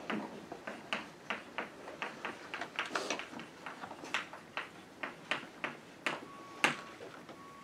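Chalk writing on a blackboard: an irregular run of quick taps and scratches, several a second, as letters are written, with one sharper tap near the end.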